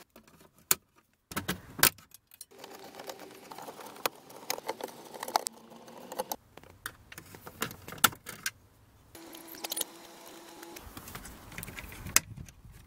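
Irregular clicks, taps and small rattles of a screwdriver, screws and plastic retainers being worked loose behind a car's glove compartment.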